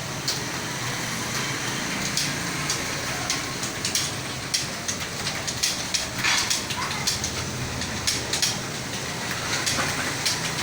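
Computer keyboard being typed on: an irregular stream of key clicks, over a steady low background hum.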